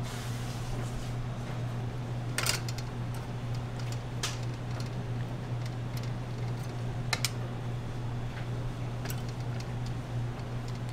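A steady low machine hum, with four short, sharp clicks or taps spread through it.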